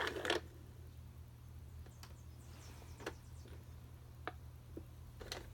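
A few faint, sharp clicks spread through a quiet stretch, over a low steady hum: plastic clicks from the See 'n Say toy being handled between phrases.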